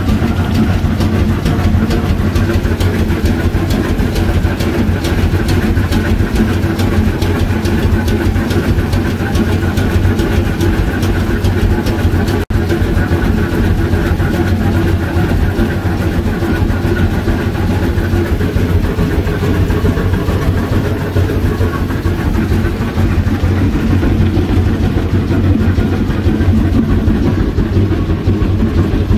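Geared Shay steam locomotive working, heard from inside its cab: a loud, steady mechanical noise with a rapid, even beat and a low hum underneath.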